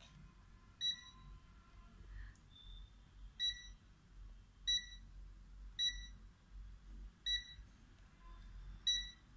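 Meco 135b+ digital multimeter beeping as its buttons are pressed: six short, high beeps spaced unevenly over several seconds.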